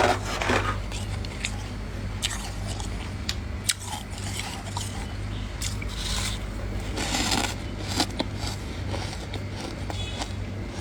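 Freezer frost being bitten and chewed: scattered sharp crisp crunches, with a denser burst about seven seconds in, over a steady low hum.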